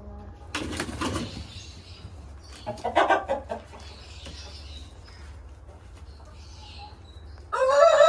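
Shamo game chickens clucking and calling, with a short loud call about three seconds in. Near the end a rooster starts a long, steady crow.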